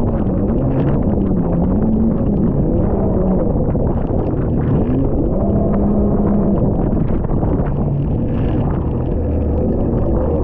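Jet ski engine running under way, its pitch dipping and rising several times with the throttle, over a heavy rumble of wind on the microphone.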